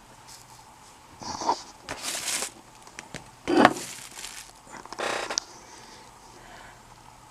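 Handling noise: four short bursts of rustling and knocking, the loudest about three and a half seconds in.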